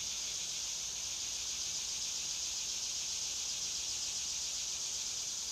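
Steady insect chorus: a dense, high-pitched shrilling that holds level without a break.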